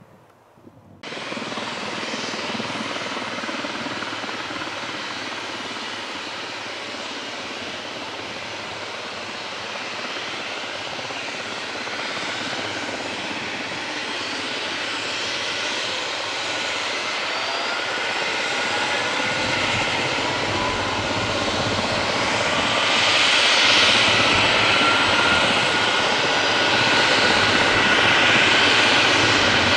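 Leonardo AW139 helicopter's twin turboshaft engines running up on the ground, the rotor speeding up. The sound comes in suddenly about a second in and grows steadily louder. A turbine whine rises slowly in pitch, and a low rumble joins about two-thirds of the way through.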